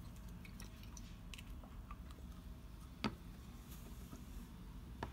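A few faint handling noises and two small sharp clicks about two seconds apart, the first about three seconds in, as a Citadel paint pot is handled and its flip-top lid opened.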